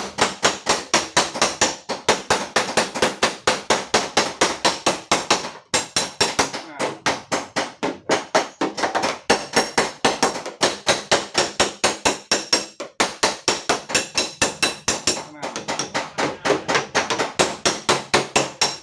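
Rapid hammer strikes on a car door's sheet-steel panel, about five or six a second, in runs broken by brief pauses: panel beating to work out a deep dent.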